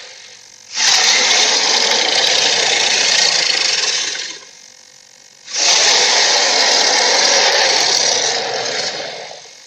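Two long roars of a dinosaur (Acrocanthosaurus) sound effect, each lasting about three and a half seconds and each fading away at its end.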